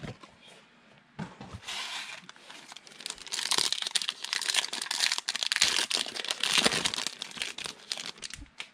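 Plastic wrapper of a football trading card pack being torn open and crinkled by hand, a dense crackling that starts about a second in.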